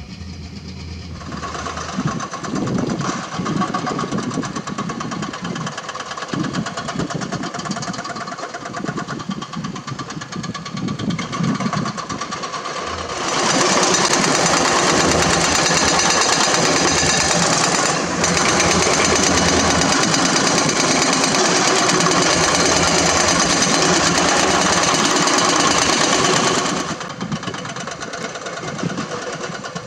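Excavator-mounted hydraulic rock breakers hammering limestone: a rapid, continuous pounding over running diesel engines. The hammering starts about a second in and becomes much louder and denser in the middle for about thirteen seconds, with a short break partway through, then drops back.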